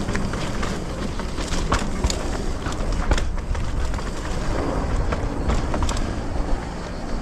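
Mountain bike riding down a rough trail: steady tyre and rattling noise broken by many sharp knocks, over a low rumble of wind on the microphone.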